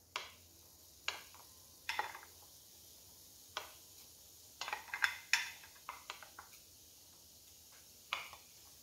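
Diced onion going into a frying pan of browning chicken pieces: about ten light, irregular clicks and taps of kitchenware over a faint, steady sizzle.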